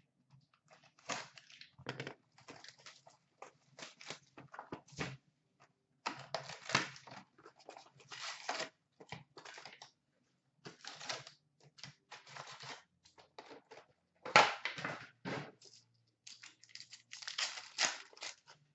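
Cardboard and wrapping rustling, crinkling and tearing in irregular bursts as a sealed Upper Deck SP Authentic hockey card box is opened and its packs handled. The loudest is a sharp rip about three-quarters of the way through.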